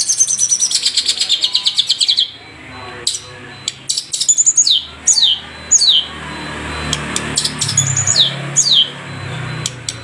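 Long-tailed shrike (cendet Madura) singing: a fast trill of repeated notes that falls in pitch over about two seconds, then sharp clicks, then two bursts of quick, steeply falling whistles.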